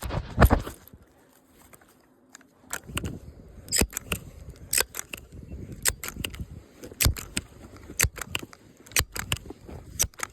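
Footsteps crunching at a walking pace, about two a second, after a loud knock and rumble right at the start.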